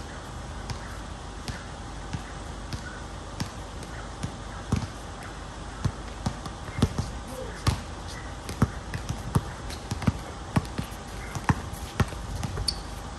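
Basketball being dribbled on a hard court: a run of sharp bounces at an uneven pace, coming faster and closer together in the second half.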